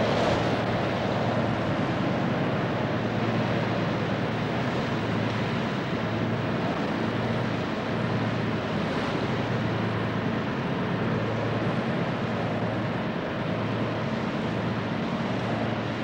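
Steady drone of an offshore supply ship's engines, with a constant rush of wind and sea over the deck.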